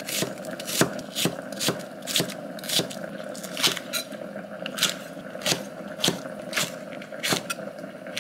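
A kitchen knife chopping through onion, green onion and green chili peppers onto an end-grain wooden cutting board: a steady run of knocks, about two a second.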